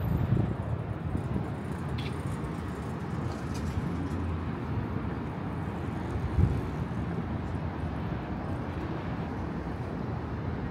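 Steady outdoor city background: a low rumble of street traffic, with a short soft thump about six seconds in.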